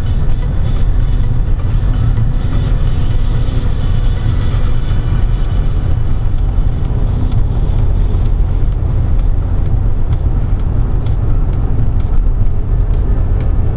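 Steady low rumble of road and engine noise inside an Alfa Romeo's cabin, cruising at motorway speed.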